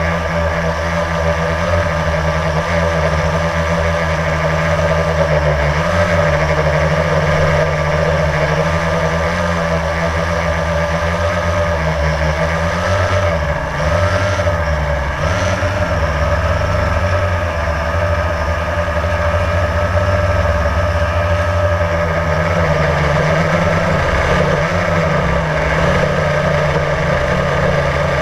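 Blade quadcopter's electric motors and propellers whirring steadily, recorded on board the drone. The pitch wavers up and down around the middle as the motor speeds shift.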